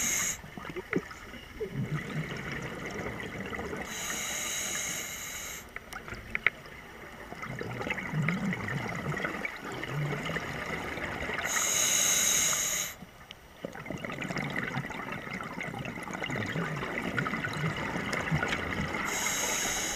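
Scuba breathing through a regulator underwater: a hissing inhalation through the demand valve every five to eight seconds, with low bubbling exhalations in between.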